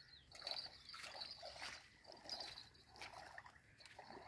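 Faint, irregular splashing at the water's surface from a hooked fish being played in close to the shore.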